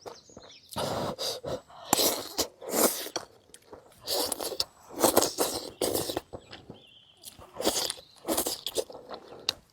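A person eating close to the microphone: irregular chewing and biting sounds, wet and crunchy, while eating saucy braised tofu skin with chillies.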